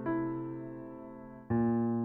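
Background music: slow, gentle piano, a chord struck at the start and another about a second and a half in, each left to ring and fade.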